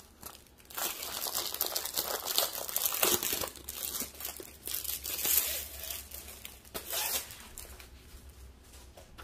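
Clear plastic sleeve on a rolled diamond painting canvas crinkling and rustling as it is handled and pulled off the roll. The noise comes and goes unevenly and dies down near the end.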